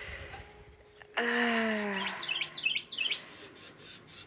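Outdoor birdsong: a songbird repeats short phrases of quick down-sliding notes. The loudest sound is a drawn-out falling call that starts about a second in and lasts nearly a second.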